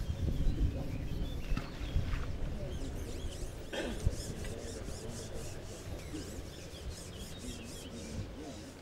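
Hands rubbing and scraping through groundbait in a plastic bait bowl, a scratchy rasping sound, with one brief sharper noise a little under four seconds in. Underneath is an uneven low rumble, loudest in the first couple of seconds.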